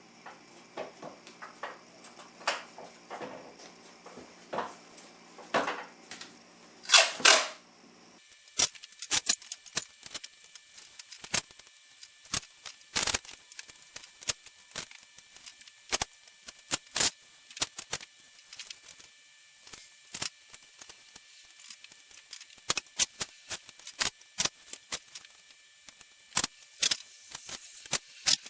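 Irregular sharp clicks and snaps from hands-on work, with two louder rasping sounds about seven seconds in; a low hum stops about eight seconds in.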